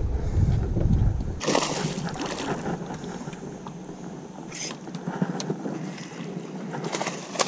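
Wind buffeting the microphone for about the first second and a half, then light water noise with sudden splashes about a second and a half and four and a half seconds in, from a small barramundi thrashing at the surface beside the boat as it is brought to the landing net.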